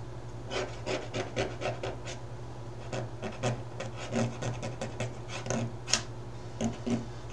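A pointed tool scratching across spray-painted poster board in a run of short, quick scraping strokes, a few a second with brief pauses, as a signature is scratched into the paint. The sharpest stroke comes about six seconds in.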